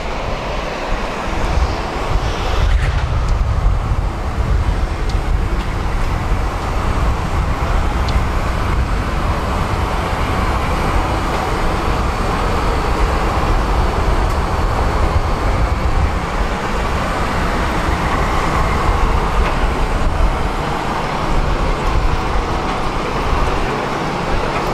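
Steady loud roar and rumble of airport ramp noise from aircraft and ground vehicles on the apron.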